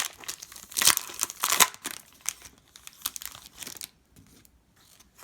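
Foil wrapper of a trading card pack crinkling and tearing, with dense crackles in the first couple of seconds that thin out and stop about four seconds in.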